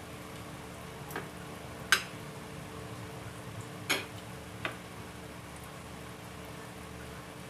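A few short clinks of a metal fork and spoon against a dinner plate, four in all, the loudest about two seconds in, over a steady background hiss and faint hum.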